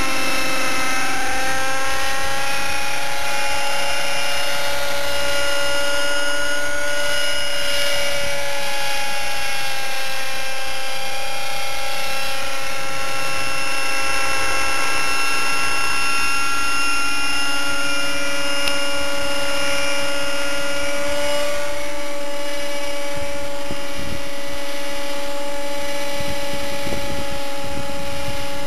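Align T-Rex 600 Nitro Pro model helicopter in flight, its OS 50 Hyper two-stroke glow engine with a Hatori performance muffler running steadily at a high whine. The pitch shifts slightly up and down a few times.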